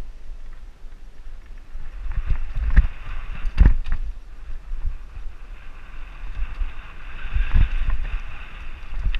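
Mountain bike riding fast down a dirt singletrack: wind rumbling on the camera microphone and tyre hiss on the dirt, broken by several sharp knocks as the bike jolts over roots and rocks, the loudest about three and a half seconds in.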